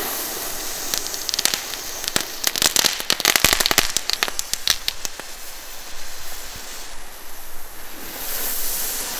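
Small category 1 consumer firework going off: a steady hiss with a dense run of sharp crackling snaps from about a second in until about five seconds in, then hissing again.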